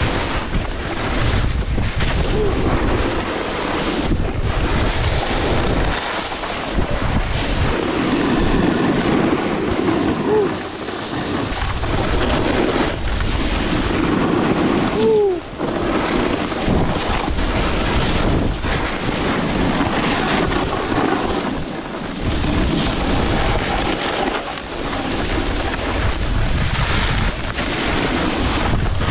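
Wind rushing over a moving action camera's microphone, with a steady low rumble, mixed with snowboards scraping and sliding over groomed snow during ground tricks. The noise is loud and continuous, with brief dips now and then.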